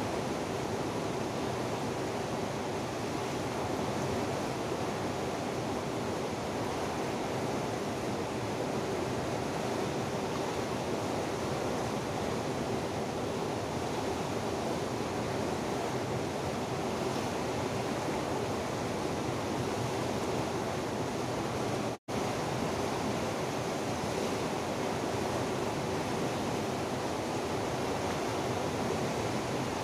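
Steady rushing of a fast-flowing river over rocks and rapids, an even noise without change. It drops out for an instant about two-thirds of the way through.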